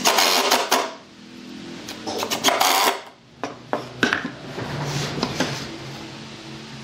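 Cordless impact driver driving two screws into a pine board, each run lasting under a second, about two seconds apart, followed by a few light knocks of wood on the workbench.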